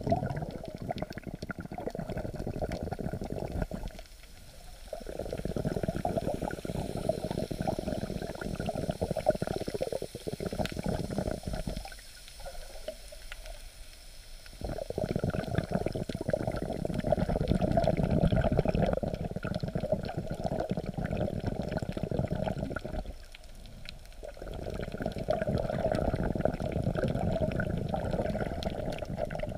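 Muffled rushing and sloshing of sea water around an underwater camera held just below the surface and rocked by the waves. The noise drops away three times for a second or two.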